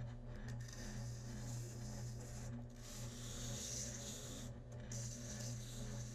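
Bandsaw running with a steady hum, its blade cutting wood with a hiss that swells and fades.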